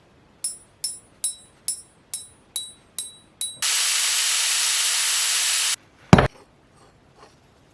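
Eight sharp, ringing metallic clinks evenly spaced about twice a second, then a steady hiss for about two seconds that cuts off suddenly, followed by a single loud low thump.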